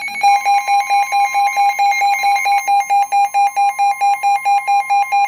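Weather-radio alert alarm beeping: a rapid, even electronic two-tone beep that gets louder and gains a second, higher tone just after it starts. It signals that a new severe weather warning is coming in.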